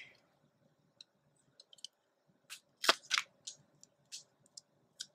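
Light scattered clicks and taps of small plastic toy pieces being handled and placed into a toy fridge playset, the sharpest click just before three seconds in.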